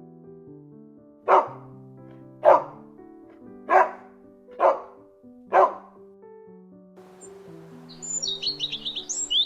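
A dog barks five times, about a second apart, over gentle background music. About eight seconds in, a bird starts a quick run of high chirps.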